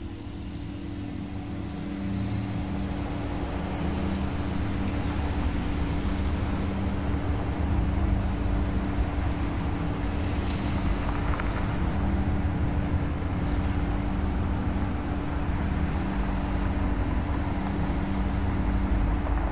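Steady low rumble of vehicle engines and road traffic, with a constant low hum underneath and no clear events.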